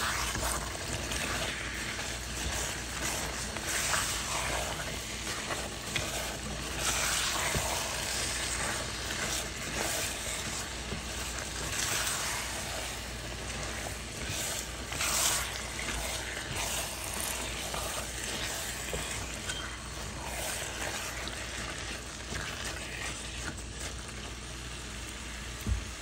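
Raw rice and chicken gizzards in tomato sauce sizzling in a nonstick pot while being stirred, with irregular scraping strokes of a plastic spatula through the rice. One sharp knock comes near the end.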